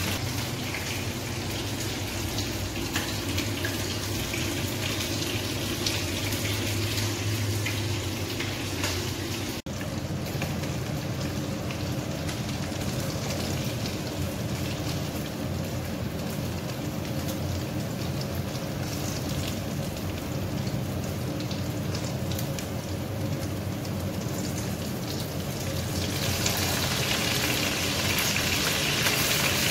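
Breaded chicken breast frying in hot oil: a steady sizzling, crackling hiss, with a brief break about ten seconds in. It grows louder and brighter near the end.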